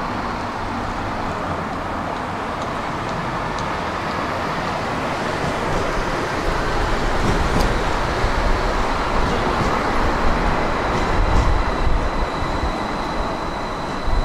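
Tram pulling into a stop: a steady rumble of wheels on rails that grows louder from about six seconds in, with a thin high whine joining near the end.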